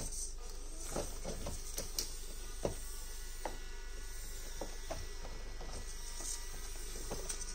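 Orlandoo Hunter OH32M02 1/32 micro crawler's tiny N20 105 rpm gear motor whirring faintly as the truck creeps over rock, with scattered light clicks and knocks from the tyres and chassis on the rock, the loudest a little under three seconds in.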